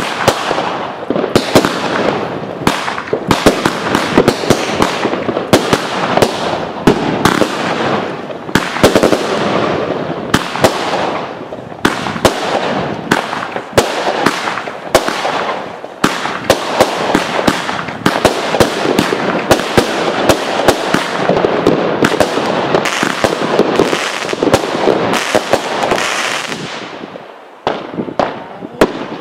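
Aerial fireworks going off in rapid succession: a dense run of sharp bangs over continuous crackling. It eases briefly near the end, then a few more bangs follow.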